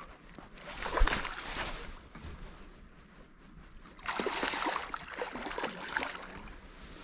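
A hooked carp thrashing and splashing at the water's surface as it is played in. The splashing comes in two bouts: a sharp, loud splash about a second in, then a longer spell of splashing in the second half.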